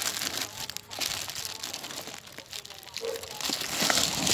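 Clear plastic wrapping on antenna parts rustling and crackling irregularly as it is handled, loudest near the end.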